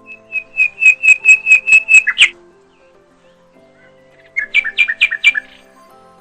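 A small songbird singing two quick phrases of sharp, repeated chirps, about four notes a second: a long run in the first two seconds and a shorter one a little past the middle, over soft background music.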